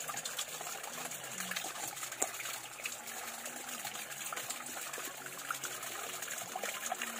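Stream water flowing and trickling steadily, with many small irregular splashes and drips.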